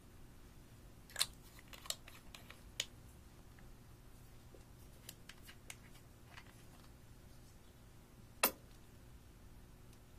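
A few short, sharp clicks and taps from small bottles, caps and a squeeze tube being handled over a glass bowl, three in the first three seconds, some faint ticks later and the loudest about eight seconds in, over a faint steady hum.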